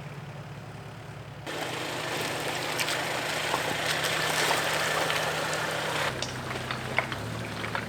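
Truck engine running steadily while driving. A rush of road and tyre noise swells in about a second and a half in and drops back about six seconds in, with scattered sharp clicks.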